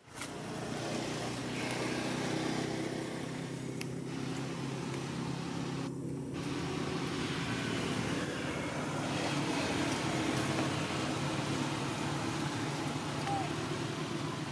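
An engine running steadily, with a low drone whose pitch shifts slightly about halfway through.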